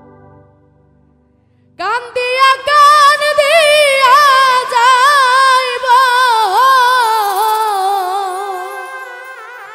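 A woman singing a long, ornamented opening line of a Bengali bichchhed (baul folk) song into a microphone, with heavy vibrato. The voice comes in suddenly about two seconds in after a fading instrumental chord, and the melody slides downward and fades near the end.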